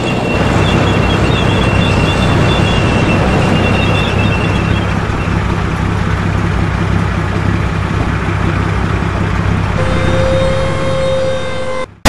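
Dubbed tank engine sound effect: a steady low engine rumble, with a thin high whine over the first five seconds and a lower held tone over the last two. It cuts off abruptly just before the end.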